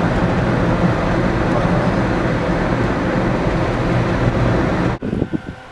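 Steady road and engine noise inside a moving car's cabin. Near the end it cuts off suddenly, leaving quieter gusts of wind on the microphone.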